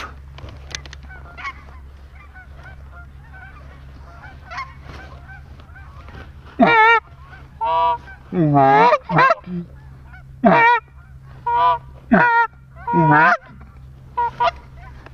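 Hand-blown goose calls sounding a rapid series of loud honks and clucks from about halfway through. Each note breaks up from a low grunt into a warbling high honk. This is calling aimed at a small flock of geese circling over the decoys. Before that, only fainter scattered goose calling is heard.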